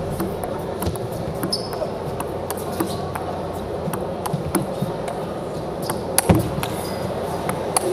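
Table tennis rally: a plastic ball clicking off rackets and the table in a long exchange, a crisp knock every half second to a second, the loudest about six seconds in. A steady hum of the arena and its crowd runs underneath.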